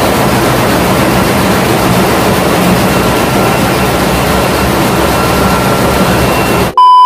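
Loud, steady din of a ship's engine room with the large main marine diesel engine running, a mix of noise and a few steady hums. Near the end it is cut off abruptly by a loud, steady electronic beep tone.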